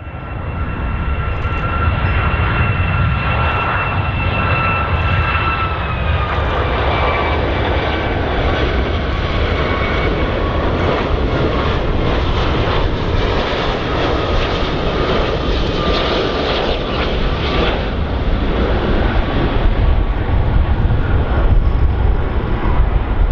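Boeing 757 on final approach, its turbofan engines running at approach thrust: a steady jet rumble with a whining tone that drops slightly in pitch about six seconds in.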